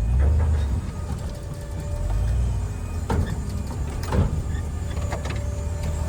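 Pickup truck running with its DumperDogg dump insert's hydraulic pump going during a dump, a steady low hum that swells twice, with a couple of sharp knocks about three and four seconds in.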